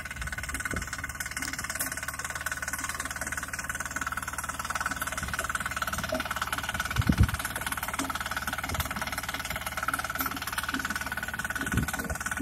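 Small walk-behind power tiller engine running steadily as it works along a furrow, with a brief thump about seven seconds in.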